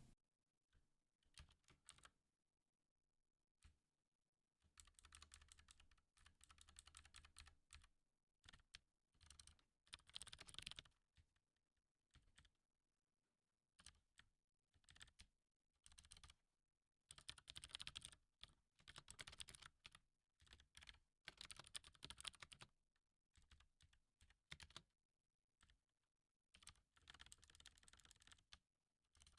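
Faint typing on a computer keyboard, coming in spurts of rapid key clicks with pauses between them while code is edited.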